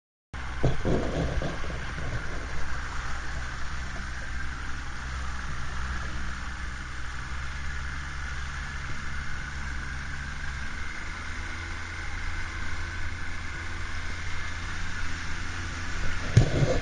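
A fishing boat's outboard motor running steadily with a low hum, its note shifting slightly about eleven seconds in. A few low bumps come near the start and again near the end.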